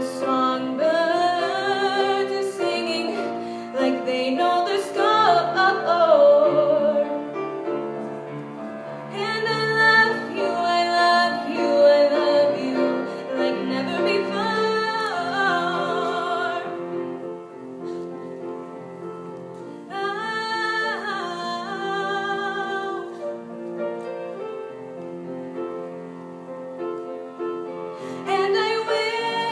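A female solo voice sings a slow ballad over piano accompaniment. The voice pauses between phrases while the piano plays on alone.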